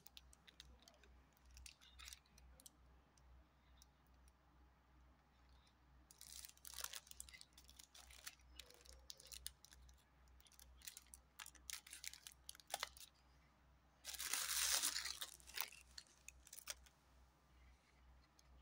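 Clear protective plastic film being peeled off the lenses and frame of new sports glasses: intermittent crinkling and rustling with small clicks, and a louder stretch of rustling for about two seconds three quarters of the way through.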